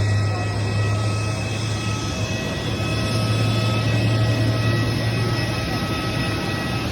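Aircraft cabin noise in flight: a steady engine drone with a strong low hum and a few faint, steady high whining tones.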